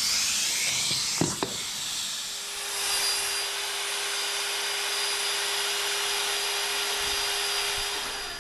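A rubbing hiss with two sharp knocks about a second in. About two seconds in, a power tool starts running steadily, a hum with a few fixed tones over the hiss.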